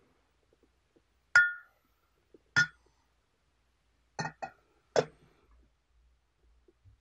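Glass lid clinking against a Hario glass teapot as it is set on: five light glass-on-glass clinks, the first the loudest with a short ring.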